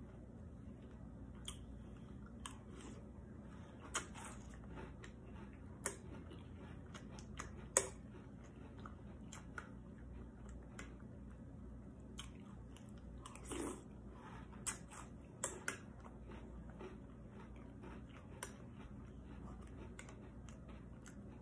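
Faint chewing and crunching of a spoonful of Drumstick cereal in milk, with scattered short sharp clicks of a metal spoon against a ceramic bowl, the loudest a little under eight seconds in.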